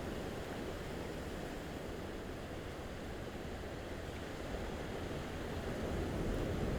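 Gentle ocean waves lapping against the shore: a steady wash of surf that swells louder near the end.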